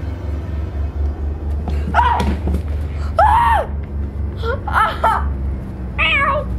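A person's high-pitched voice crying out in four short shrieks whose pitch arches up and down, over a steady low hum.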